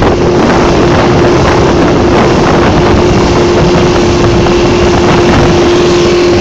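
Speedboat outboard motor running at steady high revs, its pitch held constant, while the boat planes at speed. Heavy wind rush on the microphone and hull spray run throughout.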